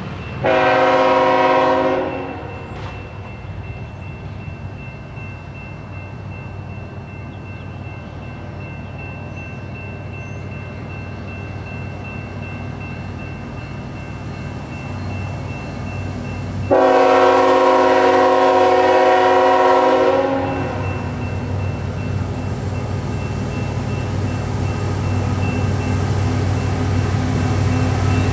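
Diesel freight locomotive's horn sounding twice, a short blast near the start and a longer one of about three seconds past the middle. Underneath is the locomotive's engine rumble, growing louder toward the end as it approaches.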